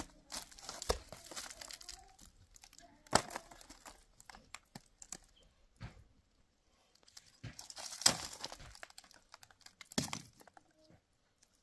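Intermittent handling noises: sharp knocks and crinkling rustles, with the loudest knocks about three and eight seconds in.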